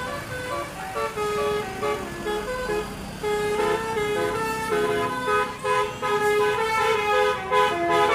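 A tour bus's basuri melodic air horn playing a tune: a run of pitched horn notes, several tones sounding together, changing every fraction of a second and louder from about three seconds in.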